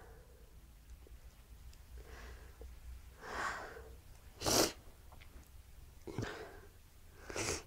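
A woman's sneezing fit: one short, sharp sneeze about halfway through, with quieter breathy bursts before and after it.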